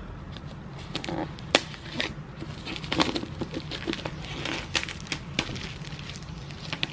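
Packaging being handled: scattered crinkles, taps and sharp clicks, over a low steady hum.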